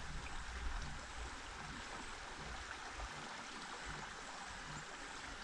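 Shallow stream flowing with a steady rush of water.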